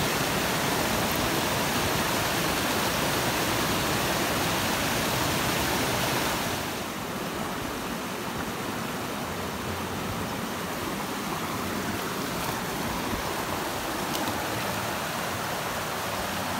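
Fast mountain stream rushing over rocks: a steady rush of white water that drops to a quieter rush about six and a half seconds in.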